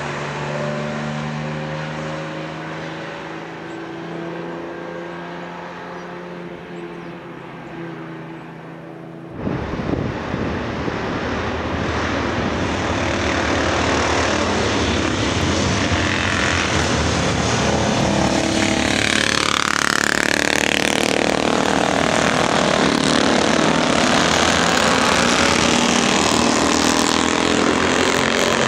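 A 1954 Jaguar XK140's straight-six engine running steadily and fading as the car pulls away. About nine seconds in, the sound cuts abruptly to louder vintage motorcycle engines as several bikes ride past one after another, their pitch sweeping as they pass.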